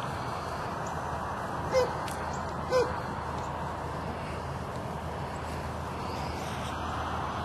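Two short animal calls about a second apart, over a steady hiss.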